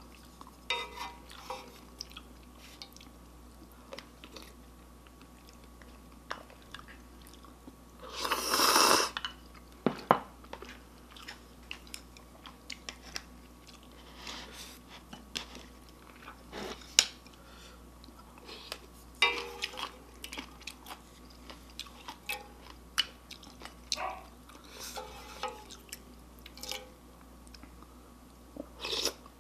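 Close-up mouth sounds of someone eating cheesy ramyun noodles and kimchi: wet chewing with scattered small clicks, and one louder slurp lasting about a second, some eight seconds in.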